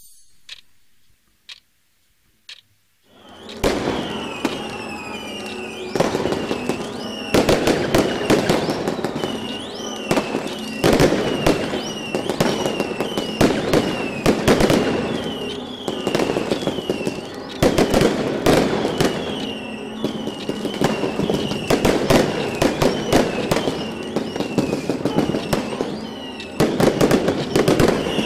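A few sharp clicks over near quiet, then, about three and a half seconds in, a fireworks display starts: rapid bangs and crackling with many short whistles, going on without a break.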